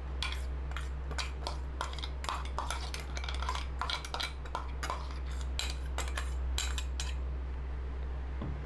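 Steel spoon scraping and clinking against the inside of a stainless steel mixer-grinder jar as ground spice paste is scooped out, in many quick taps and scrapes that stop about seven seconds in. A low steady hum runs underneath.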